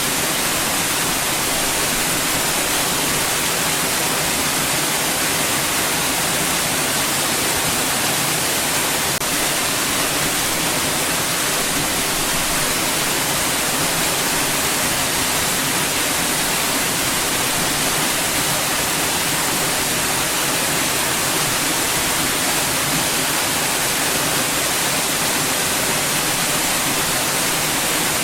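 Steady white noise: an even, unchanging hiss strongest in the high frequencies.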